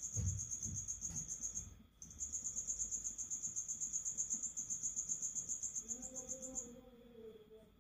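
A cricket chirping in a fast, high, pulsing trill, in two long bouts with a brief break about two seconds in, stopping about seven seconds in.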